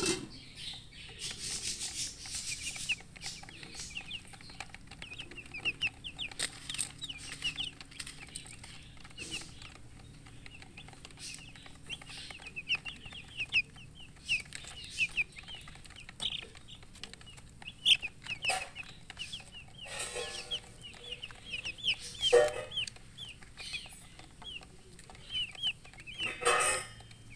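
Baby chicks peeping steadily in many short, high chirps, with a hen clucking now and then. A few louder rustling bursts come about twenty seconds in and again near the end.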